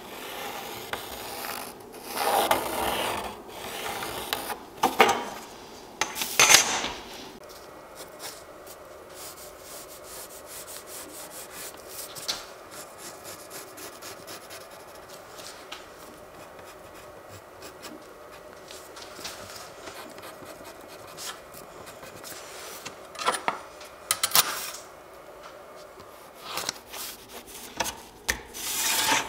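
Pencil drawing on graph paper, with a steel ruler and the paper being slid and handled on a wooden table. It is a dry scratching and rubbing, louder in a few bursts during the first seven seconds and again near the end, with fainter pencil strokes in between.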